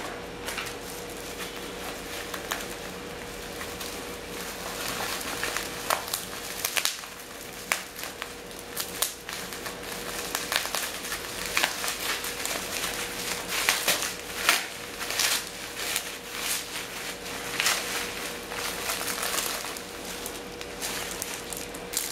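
Bubble wrap and plastic packaging crinkling and crackling in irregular bursts as a small watch is unwrapped by hand.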